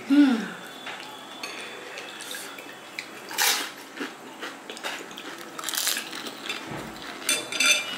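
A plastic spoon clinking and scraping against a glass bowl as sour water is spooned into a crisp fuchka (panipuri) shell, with a few short crunching and clattering sounds, the strongest about halfway through.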